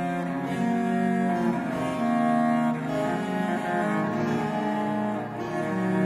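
Music played on a low bowed string instrument: a slow line of held, bowed notes that change every second or so.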